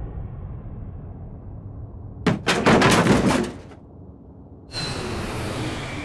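Home-recorded sound effects for an animated fight: a fading rumble, then a quick cluster of sharp knocks and impacts about two seconds in, then a steady hissing rush starting near the five-second mark.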